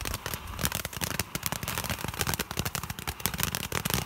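Mad Ox Lava Lamp cone fountain firework spraying sparks with a dense, fast crackle of many small pops.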